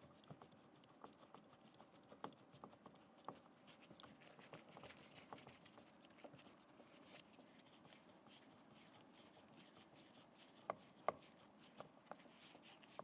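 Faint, scattered small clicks and taps of a screw being started into the plastic door pull pocket of a door trim panel, with two sharper clicks about eleven seconds in.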